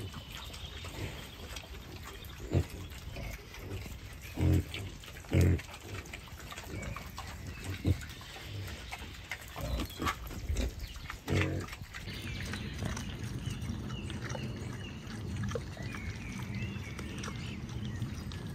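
Wild boar grunting: a handful of short, low grunts spread over the first twelve seconds, then the grunting stops and only a steadier low background is left.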